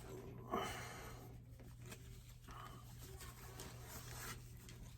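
Faint rustling of a plastic zip-top bag being handled and opened, with a short louder rustle about half a second in.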